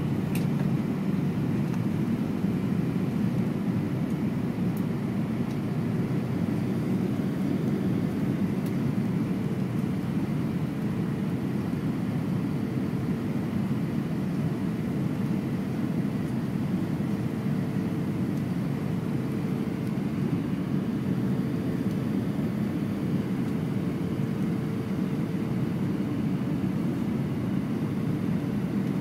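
Steady cabin noise inside an Airbus A320-200 on approach: an even low rumble of airflow and engines heard from a window seat. A faint steady hum joins it about a third of the way through.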